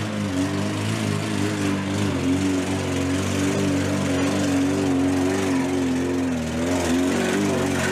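Lada Niva's four-cylinder petrol engine running under load while the 4x4 crawls up a rough off-road track, its note wavering a little with the throttle and dipping then picking up again near the end.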